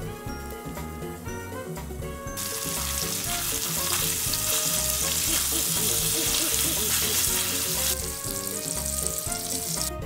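Hanwoo beef steaks sizzling in butter in a hot cast-iron pan: a loud, hissing sizzle starts suddenly about two seconds in and cuts off near eight seconds, over background music.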